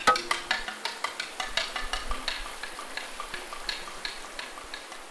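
Turning chisel cutting a wooden spindle on a lathe: a rapid, irregular clicking and scraping that gradually fades out.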